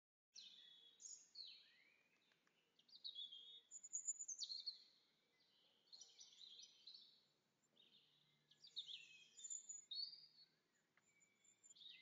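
Garden songbirds twittering: quiet bursts of quick, high-pitched chirps and sweeping notes, in clusters every second or two.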